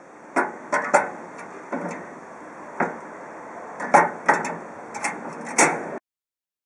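Aerosol spray cans being put into and taken out of metal wall holders. There are about a dozen sharp, irregular metallic clicks and clanks as the cans knock against the holders and their hinged clamp bars snap shut.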